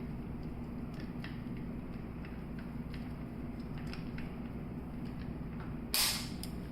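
Faint, scattered clicks and ticks of steel gun parts being handled while a muzzle brake is lined up on a match weight, over a steady low hum. Near the end comes one brief, louder scrape.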